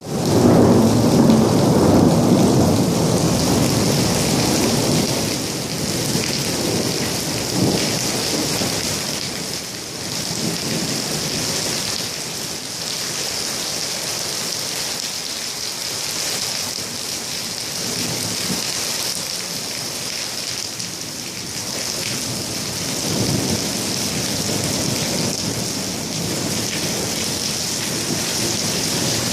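Heavy rain pouring steadily, with low rumbles of thunder that are loudest in the first few seconds and swell again briefly later.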